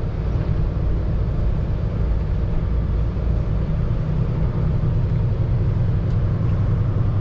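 Semi-truck's diesel engine running at low speed, heard from inside the cab as the truck creeps forward, a steady low rumble that swells slightly about four seconds in.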